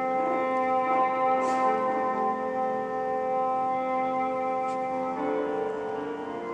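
Background music: held instrumental chords that change to a new chord about five seconds in.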